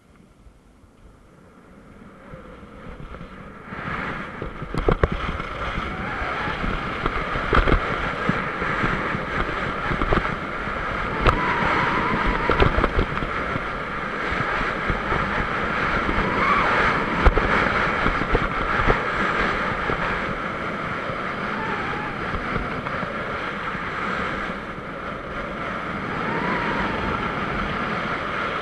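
Skis scraping and hissing over packed snow during a downhill run, with wind rushing over the action camera's microphone. The noise builds over the first few seconds and is broken now and then by sharp knocks.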